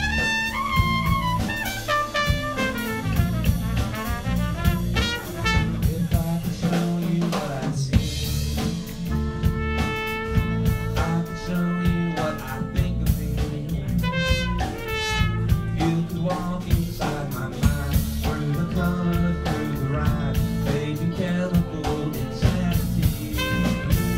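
Live band playing an instrumental passage of a funky soul-pop song: trumpet melody over drum kit, bass and guitars.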